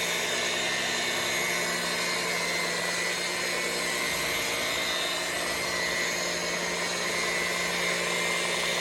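Rotary polisher with a wool pad running steadily, buffing the clear coat on car paint.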